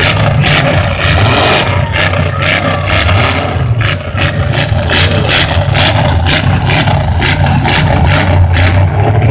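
Demolition derby car engines running loudly in the arena, with rapid, uneven surges in level.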